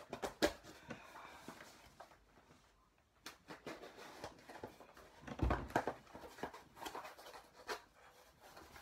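Hands opening a cardboard shipping box: irregular rustling, scraping and crackling of packaging, with a dull thump about five and a half seconds in.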